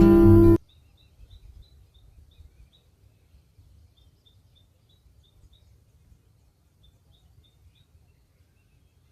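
Acoustic guitar music cuts off about half a second in. Then a small bird gives faint runs of short, high chirps, about three a second, three times, over a faint low rumble.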